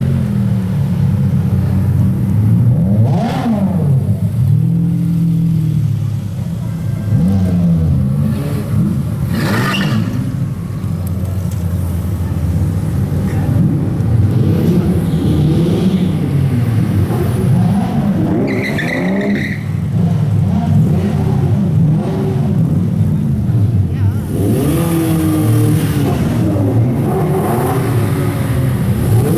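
Sports car engines revving and passing one after another at low speed, their pitch climbing and falling again and again. A short high two-tone sound comes about 18 seconds in.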